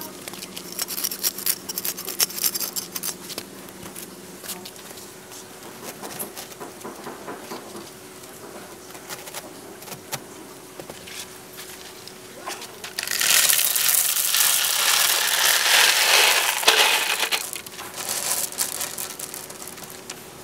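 A large knife rasping through a stiff plastic filter mat, crackly and scratchy, over the first few seconds. Past the middle, white pebbles poured into a concrete filter chamber, a loud rattling clatter for about four seconds.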